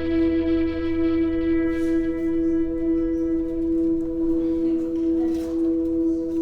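Background music: a long sustained note held steady with its overtones, with no beat and no voice.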